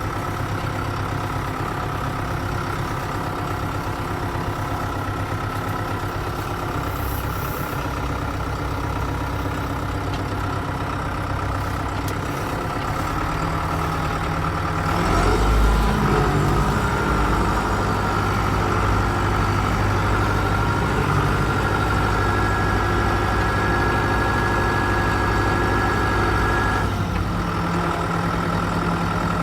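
John Deere 5510 tractor's diesel engine running steadily. About halfway through it gets louder and heavier as it works harder, then eases back a couple of seconds before the end.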